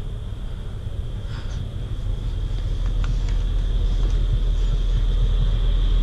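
Steady low rumble of a large river passenger launch's engines, growing gradually louder toward the end, with a faint steady high whine above it.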